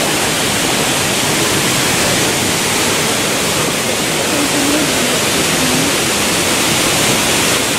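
Waterfall rushing steadily into a rocky swimming-hole pool, a loud, even hiss with no breaks.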